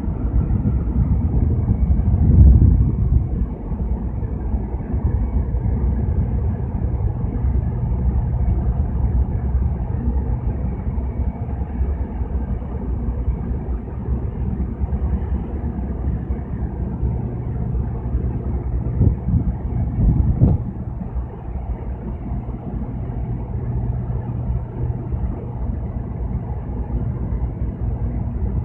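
Low, steady rumble of a livestock carrier ship's engines as it gets under way, with a steady hum under it. Louder low buffets come about two seconds in and again around twenty seconds.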